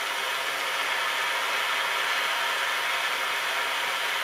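Bernzomatic plumber's blowtorch flame hissing steadily as it heats a copper pipe joint for silver soldering.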